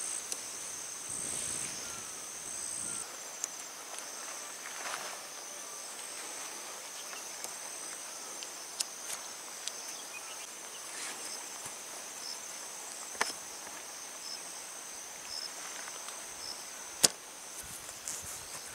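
Insects droning steadily at a high pitch, with scattered sharp clicks and small knocks of tent gear being handled: tent poles, plastic pole clips and a metal stake. The loudest click comes near the end.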